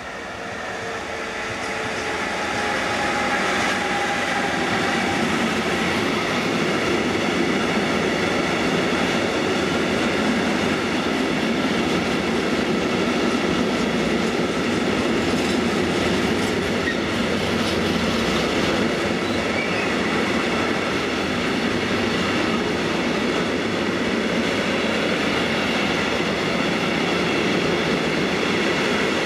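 Electric-hauled freight train of tank wagons rolling past, a steady rumble and clatter of steel wheels on the rails. It grows louder over the first few seconds as the locomotive passes and the wagons follow, then holds steady.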